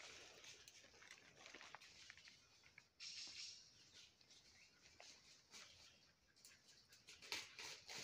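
Faint rustling and scattered crackles of dry leaves and twigs in forest undergrowth, with a brief hiss about three seconds in.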